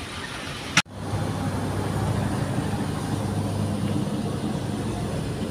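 A sharp click just under a second in, then an engine running steadily with a low, even hum.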